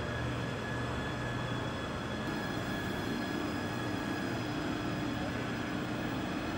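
Self-propelled heavy-load transporter running: a steady mechanical drive hum with several high, steady whines, and a lower whine joining about three seconds in.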